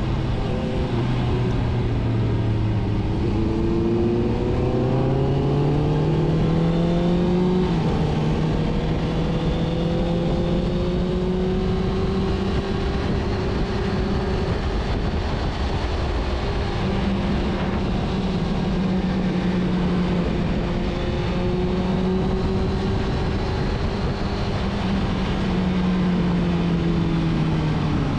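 Sport motorcycle engine under way. Its note climbs for several seconds, drops sharply about eight seconds in as at a gear change, then holds a fairly steady cruising pitch with small rises and falls, over a continuous rushing noise.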